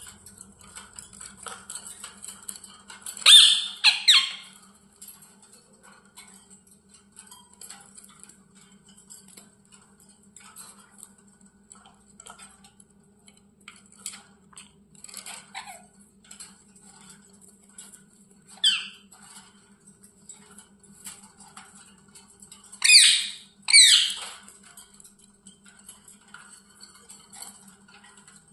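Pet parrot chirping softly and now and then letting out loud squawks: a pair early on, a single one later, then another pair, with quieter chirps in between. A steady low hum runs underneath.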